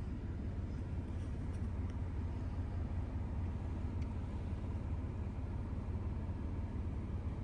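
Steady low rumble, even in level, with a faint steady high tone over it and a few faint ticks in the first half.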